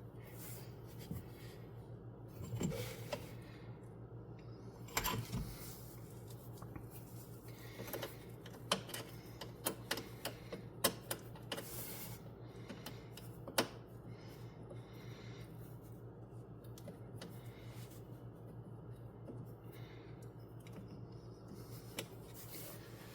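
Scattered sharp clicks and light knocks of small metal parts and tools being handled, over a steady low hum. A couple of duller knocks come a few seconds in, and a run of separate clicks follows about eight to fourteen seconds in.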